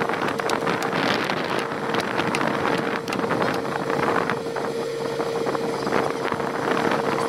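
Komatsu excavator's diesel engine running steadily, with a constant whine over it.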